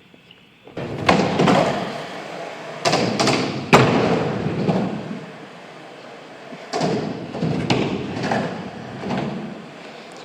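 Skateboards rolling across the ramps with a rumbling roll, broken by sharp clacks of boards and wheels striking the surface, three close together about three to four seconds in, the last the loudest, and another surge of rolling and knocks near seven seconds.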